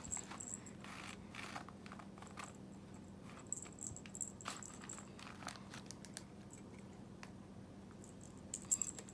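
Scattered rustling, crinkling and light clicks as cats paw at a wand cat toy on a string and brush against a nylon bag and plastic packet, with a quick cluster of sharper clicks near the end. A faint steady low hum underneath.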